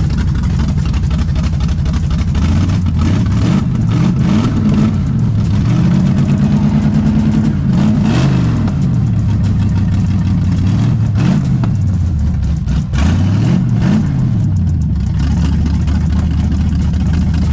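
Chevrolet Camaro engine running just after being cranked, revved up and down several times, with one rev held for a couple of seconds. The car probably has no exhaust fitted.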